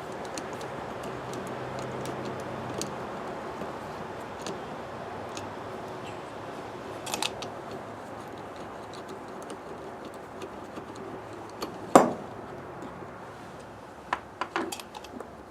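Hand tool working on a carburetor: scattered small metallic clicks and taps over a steady background hum, with one sharper click about twelve seconds in and a few more near the end.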